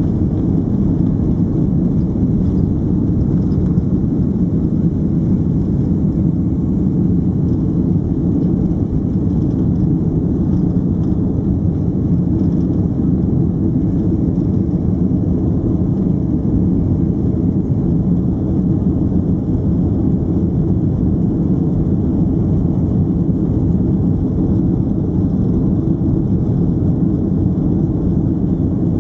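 Jet engines of a Boeing 767-300ER at takeoff thrust, heard from inside the cabin: a steady, loud low roar through the end of the takeoff run, liftoff and the initial climb.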